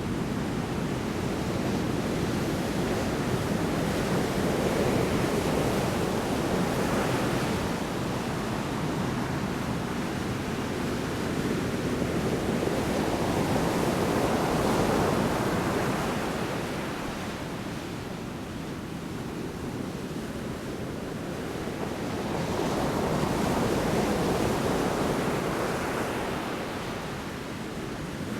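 Large storm waves crashing on the shore, a continuous surf wash that swells and ebbs every eight to ten seconds.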